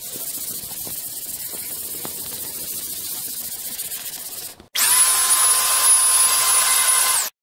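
Hand sanding of a plywood panel with a sanding sponge: a steady rasping hiss with faint stroke-by-stroke pulses. A little over four and a half seconds in, a cut brings a louder DeWalt handheld blower running with a steady high whine, which stops abruptly near the end.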